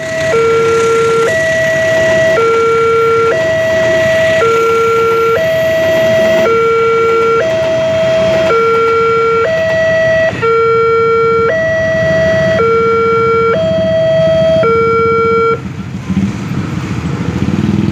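Indonesian railroad level-crossing warning alarm sounding its electronic two-tone signal: a lower and a higher tone alternate about once a second. It cuts off sharply about fifteen seconds in, leaving the low rumble of motorcycle engines idling and pulling away.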